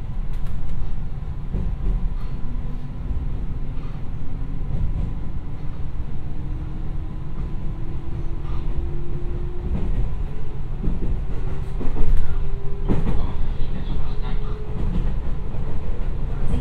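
Binaural onboard running sound of a JR West 221 series electric local train: a steady low rumble of wheels on rail with scattered rail-joint clicks, the loudest about twelve seconds in. Under it a faint whine rises steadily in pitch as the train gathers speed.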